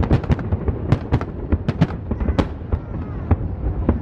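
Fireworks display: aerial shells bursting in quick succession, several sharp bangs and crackles a second over a continuous low rumble.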